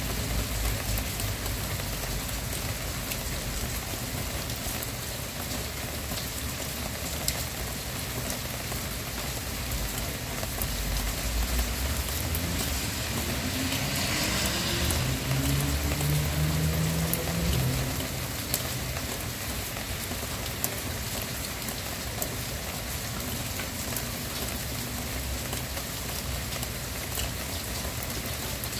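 Steady rain falling, with a hiss of drops and faint scattered patters. Around the middle, a low rumble with a rising hum swells and then fades.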